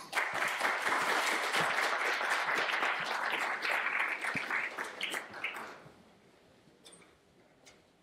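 Audience applauding, then dying away about five or six seconds in, leaving a few faint clicks.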